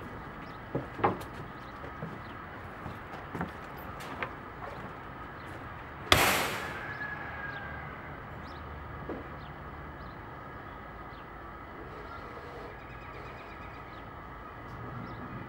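A few light knocks, then one loud bang about six seconds in that rings out for a second or so.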